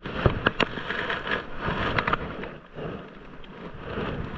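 Rustling and scraping of rubber-gloved hands handling a wet rope, with a few sharp clicks in the first two seconds.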